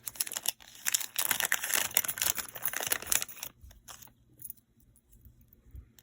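Small packaging crinkling and rustling as it is handled and opened to get at a pair of hoop earrings. The crinkling stops about three and a half seconds in, leaving a few soft handling knocks.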